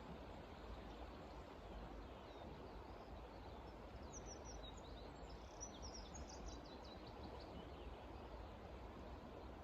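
Faint, steady outdoor background noise, with a songbird giving a quick run of high chirps around the middle.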